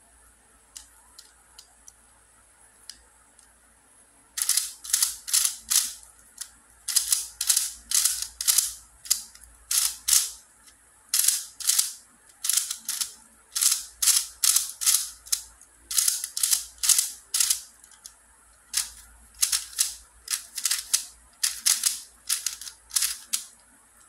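Plastic YJ Tick Cage puzzle cube being turned rapidly by hand, its layers clacking in short scratchy bursts of about two to three turns a second, with brief pauses between runs. A few faint clicks come first, and the fast turning starts about four seconds in.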